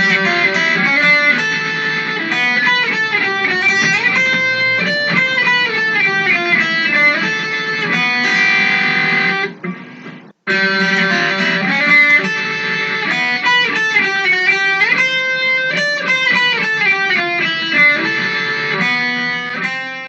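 Guitar-led intro music: a plucked guitar tune, its phrase heard twice with a brief break about halfway through.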